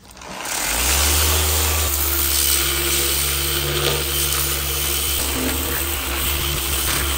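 Orbital sander spinning up about half a second in, then running steadily with a low motor hum and the hiss of abrasive scuffing a chrome steel bumper bare for primer.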